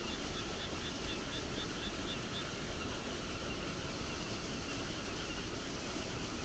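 Night insect chirping: a regular high chirp about four times a second, fading after the first few seconds, over a steady hiss of outdoor background noise.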